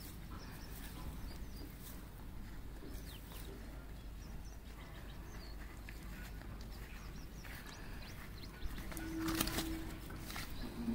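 Quiet rural outdoor ambience with faint bird chirps. About three-quarters of the way through, rustling and clicking handling sounds grow louder.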